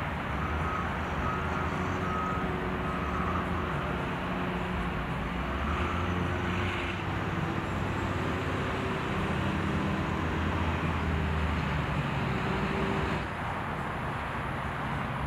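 Steady road-vehicle noise: a low engine hum with tyre and traffic rumble, easing a little near the end.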